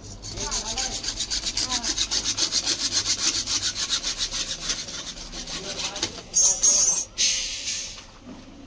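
A hacksaw blade, held in the hand, saws through a CPVC pipe in quick, even back-and-forth strokes, stopping about six seconds in. Two brief, louder scraping sounds follow near the end.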